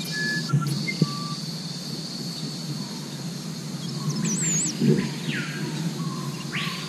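Forest birds calling: short whistled notes, then two longer calls that rise and fall, about four and six and a half seconds in. They sit over a steady high insect drone and a low steady hum.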